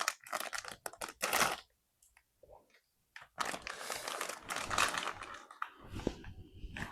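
Plastic wrapping on a blind-box figure crinkling and tearing as it is unwrapped by hand, in two spells: briefly at the start, then again from about three seconds in.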